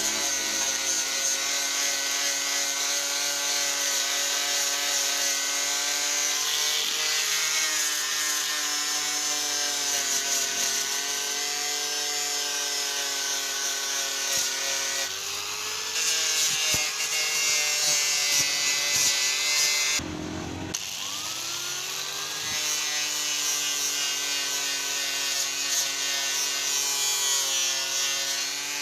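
Electric angle grinder with a cardboard buffing disc and green polishing compound, running against a bare aluminium engine case cover. It gives a steady motor whine over the rub of the pad on the metal. The pitch wavers as the pad is pressed, dips briefly about two-thirds through, then climbs back.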